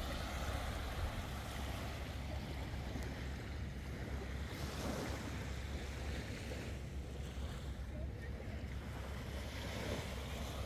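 Sea waves washing in, in swells a few seconds apart, with wind rumbling on the microphone.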